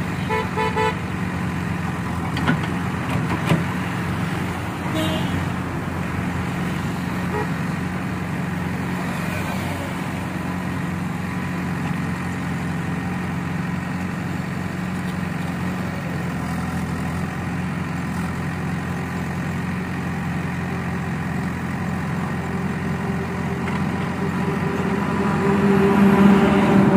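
Diesel engine of a JCB backhoe loader running steadily as it digs. A vehicle horn gives short toots in the first second, and a truck passes, growing louder, near the end.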